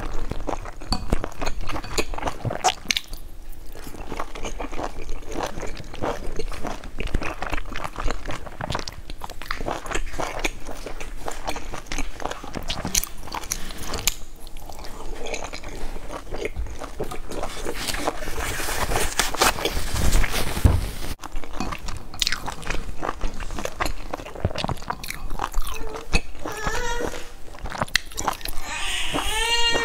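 Close-miked eating sounds: biting into and chewing pan-fried stuffed buns, with wet smacking and light crunching. A wavering voice comes in near the end.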